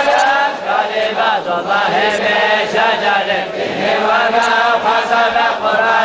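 Unaccompanied vocal chanting, the voice drawing out long wavering notes without any beat.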